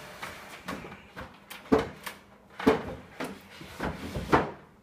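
Two wooden Adirondack chairs being slid and knocked together, with a dragging scrape at first, then a run of wooden knocks, the three loudest about a second and a half, close to three seconds, and just past four seconds in.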